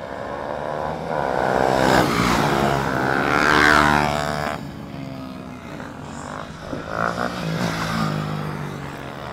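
KTM Duke 390 single-cylinder engine heard from an onboard camera as the bike pulls away and accelerates. It rises in pitch for about four seconds, drops at a gear change, then climbs again.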